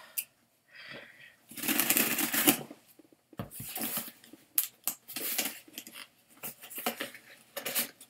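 Scissors cutting open a sealed subscription box and the box being handled: a stretch of rustling and scraping about a second and a half in, then a run of short sharp snips and clicks.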